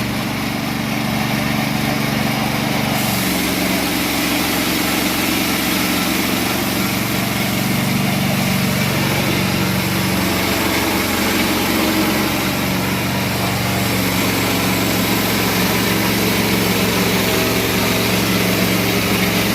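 Two-stroke Husqvarna chainsaw running at high revs, cutting lengthwise through a log on a rail-guided chainsaw mill. The engine picks up about three seconds in and then holds a steady, loaded note.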